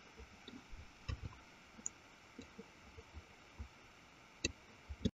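Faint, scattered clicks of a computer mouse and keyboard at irregular intervals, the clearest about a second in and near the end.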